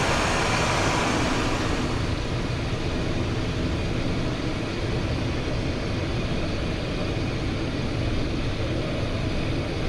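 Steady cabin noise of a Cessna Citation XLS twin-turbofan business jet in flight on final approach: an even rush of engine and airflow noise, heaviest in the low end.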